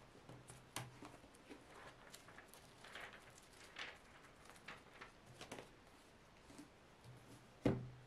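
Paper pages of a small paperback book being leafed through, with soft rustles and light handling ticks, then a dull thump near the end as the book is set down.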